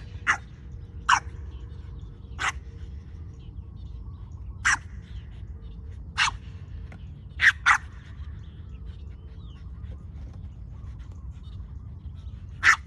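French Bulldog puppy barking in short, sharp, high barks, about eight of them spaced irregularly, with a double bark about three-quarters of the way through. It is excited play barking.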